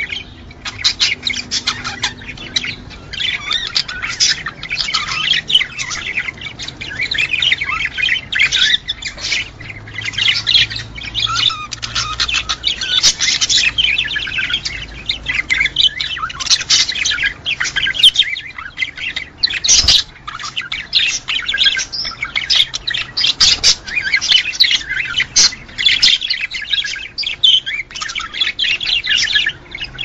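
Budgerigars chattering and warbling, a dense unbroken stream of short chirps and squawks.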